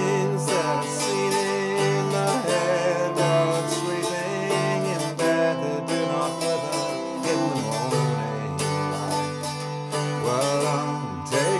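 Irish bouzouki strummed steadily, with a man singing over it.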